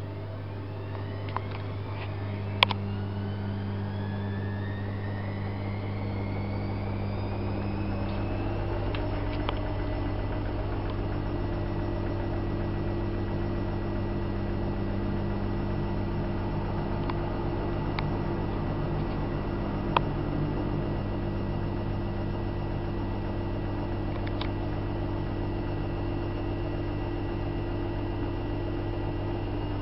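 Privileg Single 42614 washing machine running a cotton wash, its drum motor whining as it speeds up over the first several seconds and then holding a steady pitch over a constant low hum. A few sharp clicks come now and then, the loudest a few seconds in and again about two-thirds of the way through.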